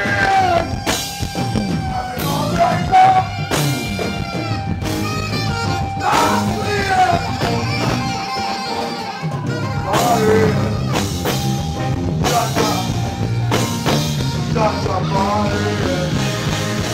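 Live band music: drum kit and electric guitar with a saxophone playing long held notes and gliding runs, and some singing.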